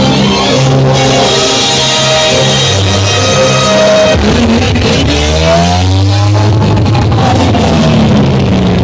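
Loud music with held low bass notes; about halfway through, a tone sweeps up and down in pitch.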